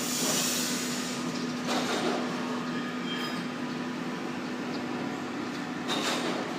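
ESAB 350 MIG welder at work in auto mode: a steady hiss over a constant electrical hum, with louder bursts of hiss at the start, about two seconds in and near the end.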